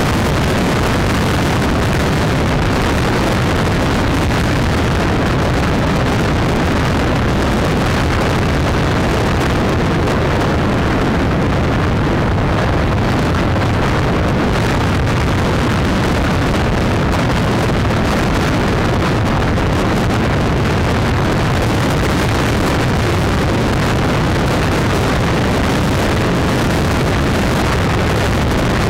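Steady wind and road noise at motorway speed, with wind buffeting the microphone of a camera riding on a moving vehicle.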